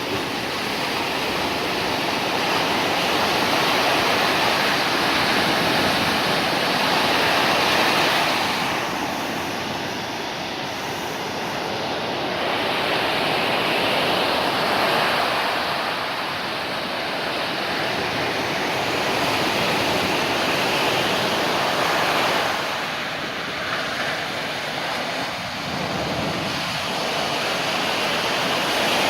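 Storm surf breaking on a beach: a continuous roar of waves that swells and eases every several seconds as the sets come in.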